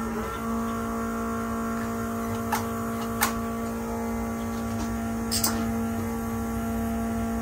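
Electric fuel pump on a 1977 Ford F-150 humming steadily as it primes the fuel system, with three short sharp clicks: one about two and a half seconds in, one about three seconds in, and one about five and a half seconds in.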